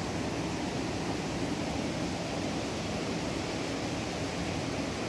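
River water rushing steadily through the sluice channels of an old stone mill dam, a continuous even rush with no breaks.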